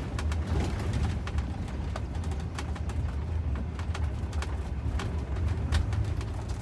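Van rolling slowly along a gravel road, heard from inside the cab: a steady low rumble with scattered crackles and pops of gravel under the tyres.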